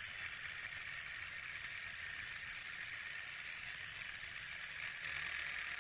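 Alpha-type walking-beam Stirling engine running at speed, a faint steady whir and hiss with a thin high whine, as it spins its small side-mounted DC generator with no load.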